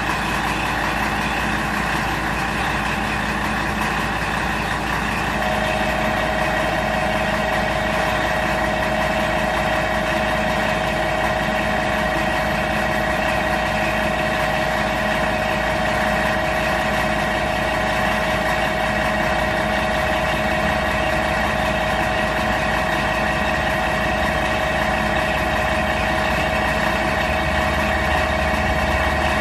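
Diesel engine of a KiHa 47 railcar idling steadily at standstill, with a steady higher whine joining about five seconds in.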